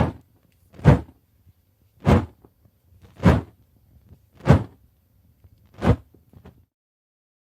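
Burning fire torch swung through the air, making six short flame whooshes about a second apart.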